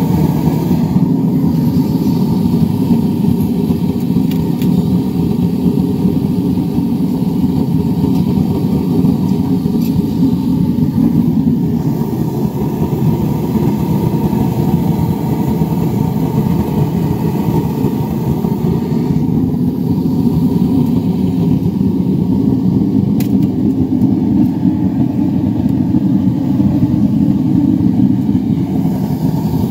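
Backyard metal-melting furnace running, its forced-air burner and blower making a loud, steady rushing noise.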